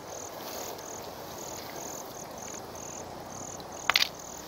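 An insect chirping steadily, a short high pulse about three times a second, over the steady rush of a shallow stream; near the end, a brief loud splash as a hand is pulled out of the water.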